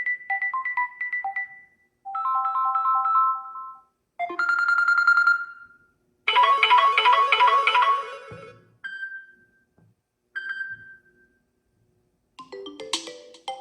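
Stock Samsung Galaxy A15/A25 ringtones and notification sounds played one after another. Short electronic chime melodies are separated by brief gaps, with two single short tones in the middle and a new melody starting near the end.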